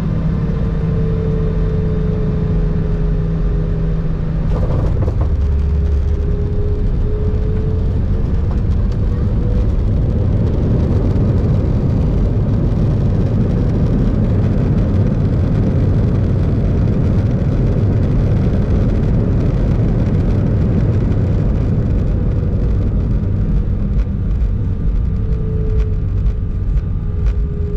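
Airbus A319 cabin noise during the landing roll: a steady loud rumble of the engines and the wheels on the runway, with a faint wavering engine whine. A single thump comes about five seconds in.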